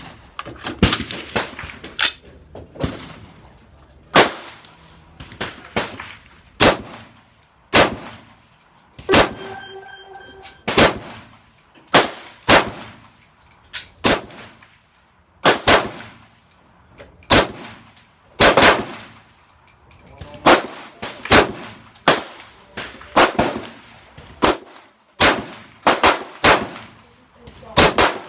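Slow, steady semi-automatic fire from a 7.62 AR-15 pistol: about twenty single shots, each a sharp crack with a short ringing tail, spaced roughly one to one and a half seconds apart while the red dot is sighted in. A brief steady ringing tone sounds about ten seconds in.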